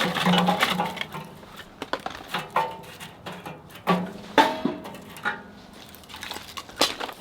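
Scattered knocks, clacks and cracks of split firewood being handled while lighting a wood-burning stove.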